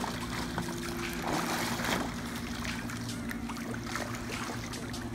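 Choppy swimming-pool water sloshing and trickling around a small floating plastic-bottle boat, with a steady low hum underneath.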